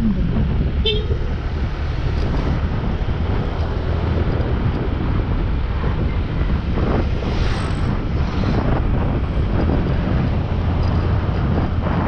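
Motorcycle on the move: steady engine noise and wind on the camera's microphone, with a brief horn toot about a second in.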